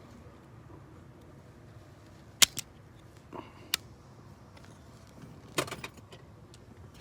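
Sharp metallic clicks and clinks from handling small hardware and tools, a few single ones and then a quick cluster of several near the end.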